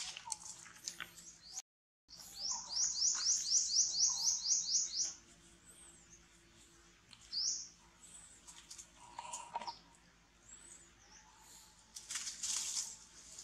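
A bird calling in a fast, even run of about a dozen high chirps, roughly four a second, with single chirps after it. A short rustle comes near the end.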